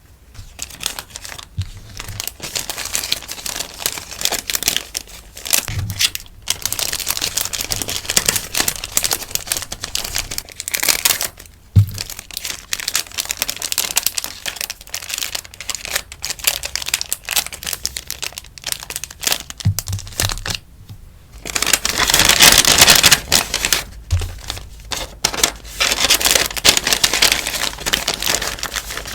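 Close-up rustling and crinkling of sticker packaging being handled and wrapped, with a louder, denser burst of crinkling about three quarters of the way through.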